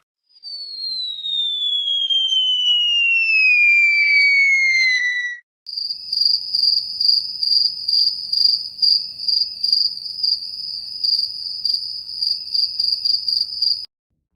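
A high whistle sliding steadily down in pitch for about five seconds, then, after a brief gap, crickets chirping in an even pulsing rhythm, about two to three chirps a second: the crickets effect used for an awkward silence.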